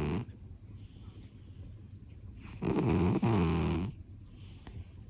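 British Shorthair cat snoring in its sleep: one loud snore lasting just over a second about halfway through, with the end of another at the very start and quiet breathing in between.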